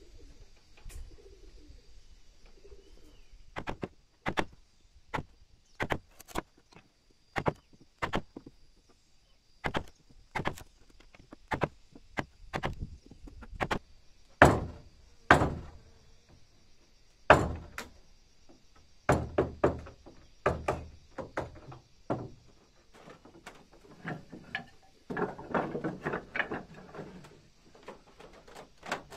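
Irregular wooden knocks and thuds as boards and timber pieces are handled and worked on a plank workbench. A denser clatter of wooden strips comes near the end.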